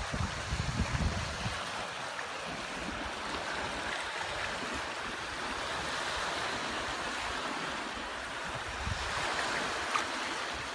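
Barents Sea waves washing on the shore, a steady rushing hiss, with wind buffeting the microphone for the first second or so.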